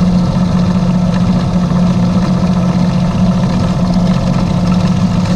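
Electric drill motor running at a steady speed with an even hum, its bit being fed slowly through a fiberglass rocket body tube to bore a rivet hole.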